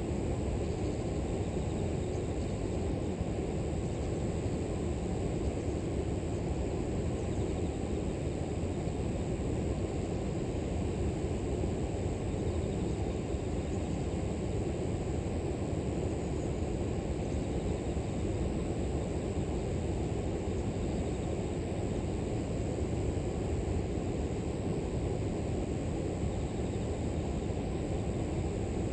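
River water flowing with a steady low rush, under a continuous high-pitched chorus of grass insects.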